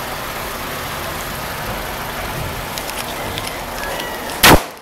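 A single loud bang about four and a half seconds in: HHO (oxyhydrogen) gas igniting in a hand-held metal tube tester, over steady engine noise.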